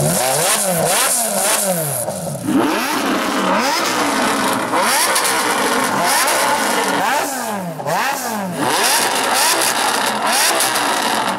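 Supercar engine revved again and again in quick blips, its pitch rising and falling over and over.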